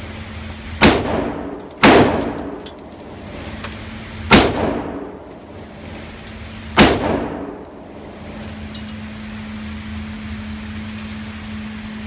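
Bushmaster ACR semi-automatic rifle in 5.56 mm firing four single shots, unevenly spaced over about six seconds, each echoing off the walls of an indoor range. After the last shot only a steady low hum is left.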